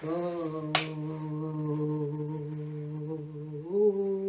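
A person humming one long, steady note in a meditation chant, stepping up to a slightly higher note near the end. A single sharp click about a second in.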